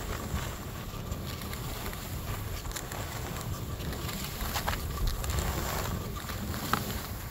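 Wind buffeting the microphone while sliding fast down a groomed ski run, over a steady hiss of packed snow passing underfoot, with a few short, sharper scrapes on the snow in the second half.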